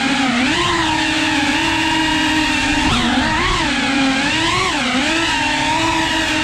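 Small FPV quadcopter's motors and propellers whining, the pitch dipping and rising again several times as the throttle is eased off and opened up.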